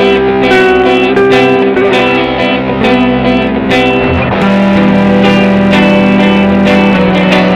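Guitar playing a run of picked notes, with a low note held from a little past halfway.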